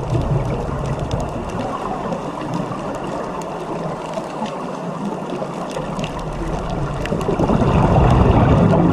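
Underwater ambience on a reef dive: steady rushing and gurgling water noise with scattered faint clicks, growing louder near the end.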